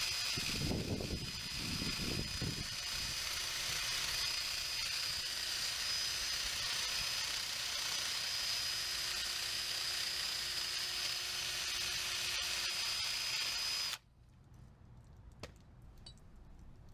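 Cordless drill spinning a wire-wheel brush against metal, a steady scratchy hiss over a thin high motor whine, used to scrub old paint and grime off the copper pipe before it takes a push-fit fitting. It stops abruptly near the end.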